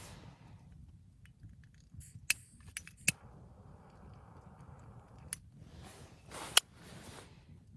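A jet torch lighter clicking a few times as it sparks, then its blue flame hissing steadily for about two seconds while it lights a candle. It is followed by handling rustle and a sharp click near the end.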